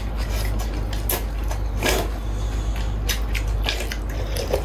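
A person eating rice vermicelli noodle soup: several short, noisy slurps of noodles and chewing.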